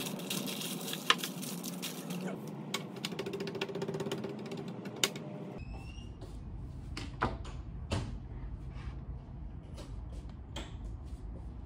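Parchment paper crinkling as it is pressed and folded into a loaf pan. After a cut about halfway through come scattered light knocks and scrapes of kitchen utensils against a steel mixing bowl.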